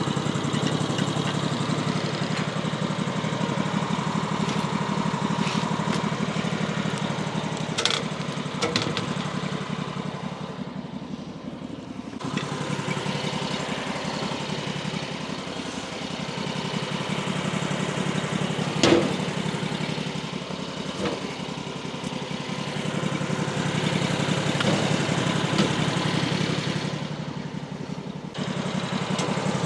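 Woodland Mills HM136MAX sawmill's gasoline engine running steadily, with a couple of brief dips in level. A few short knocks sound over it, the loudest about two-thirds of the way through.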